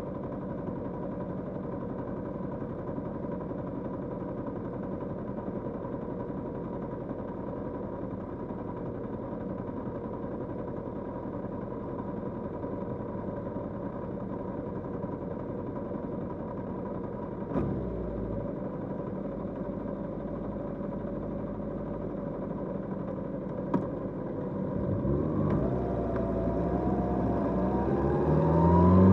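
Kawasaki GPZ550 air-cooled inline-four motorcycle engine idling steadily, with a short clunk about two-thirds of the way through and a click a few seconds later. Near the end the engine revs rise as it pulls away and accelerates.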